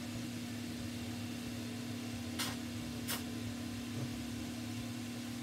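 Steady low hum over room noise, with two short clicks about two and a half and three seconds in.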